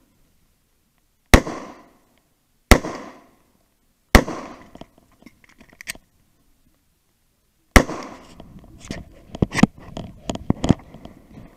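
Four pistol shots from a 9mm Glock 19, each with a short echo: three about a second and a half apart, then a fourth after a pause of over three seconds. Smaller sharp knocks and rustling follow after the last shot.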